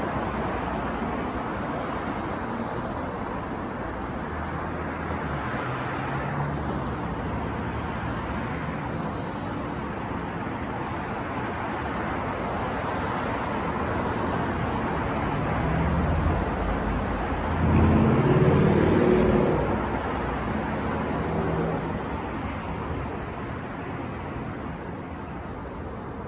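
City street traffic: a steady wash of passing cars, with one louder vehicle's engine swelling past about two-thirds of the way through.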